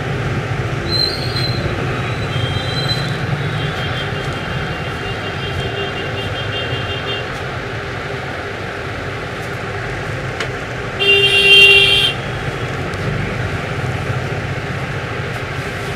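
Steady street traffic noise with a vehicle horn sounding loudly for about a second, about eleven seconds in; fainter held horn tones sound in the first several seconds.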